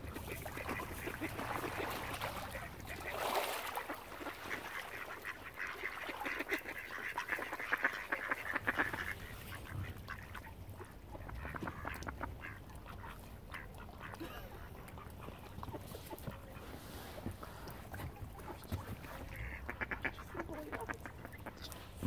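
Mallard ducks quacking. Many calls crowd together for the first several seconds, then come more sparsely, with a brief flurry again near the end, over a low rumble.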